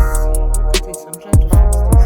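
Background music with a steady beat: deep kick drums and crisp hi-hat ticks over sustained chords, the bass dropping out briefly about a second in.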